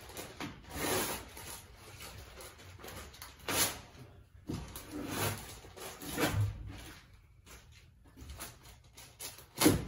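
Rustling and scraping as a paper-faced fiberglass insulation batt is handled on the floor. There are a handful of short, noisy strokes a second or two apart, and a sharp knock near the end.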